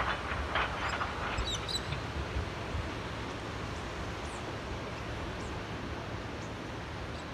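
Small waves lapping in a sea channel: a steady wash of water with a few splashy laps in the first second or so. A bird chirps briefly about one and a half seconds in, with fainter chirps later.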